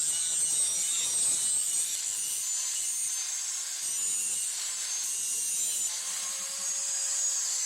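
Steady, continuous abrasive scraping of steel, with a high hiss, as the rebar knife blade is worked down by abrasion.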